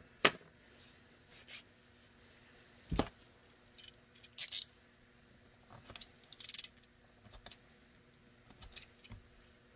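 Quiet handling sounds while a paracord end is sealed with a disposable lighter. There is a click near the start and a sharper tap about three seconds in. Short scratchy rustles follow at about four and a half and six and a half seconds as the cord is worked with the fingers, with a few faint clicks after.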